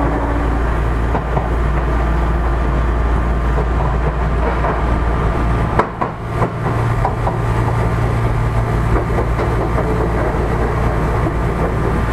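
Odakyu 1000-series electric train running, heard inside the car: a steady rumble of wheels on rail under loud air-conditioning noise, with a few clicks and a knock about halfway through.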